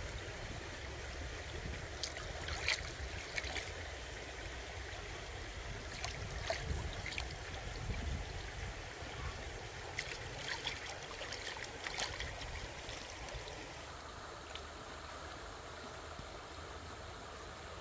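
Shallow stream running over rocks, with a scatter of short splashes and knocks as hands wash food in a clay bowl of water; for the last few seconds only the stream is heard.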